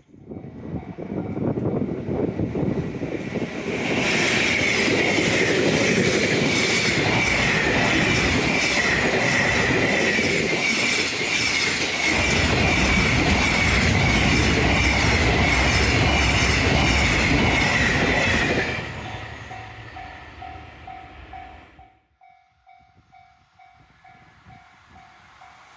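Freight train hauled by an electric locomotive passing at speed: the sound builds over the first few seconds, then a long run of wagons goes by with a rhythmic clickety-clack of wheels over rail joints and a steady high whine, fading away a few seconds before the end.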